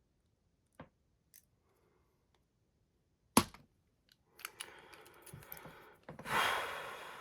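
A few faint clicks from picking tools in a Mindy AF16-50 pagoda padlock, then one sharp, loud snap about three seconds in as the shackle pops open. After that comes a few seconds of rustling and scraping as the opened lock and tools are handled.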